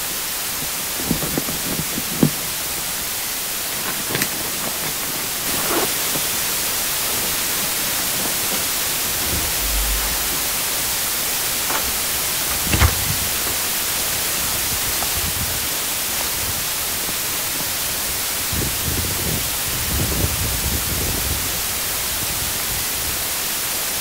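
Steady white-noise hiss filling the whole sound, brightening slightly about five seconds in. A few faint knocks and rustles lie underneath, the clearest about thirteen seconds in.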